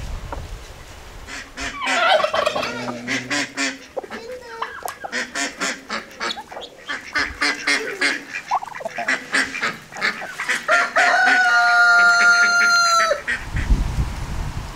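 Flock of chickens clucking and squawking while pecking at grain, many short calls one after another. Near the end, one long drawn-out call holds a steady pitch for about two seconds.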